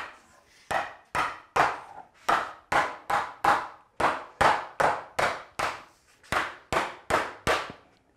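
Hammer tapping a long wooden breadboard end to drive its groove onto the tabletop's tongue in a test fit. Sharp knocks on wood come about two a second.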